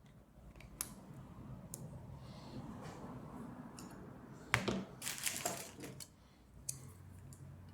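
Sharp metal clicks and scraping as a nail is worked against a quick-connect air coupler to unscrew its threaded section. The loudest click comes about halfway through, followed by a quick run of clicks.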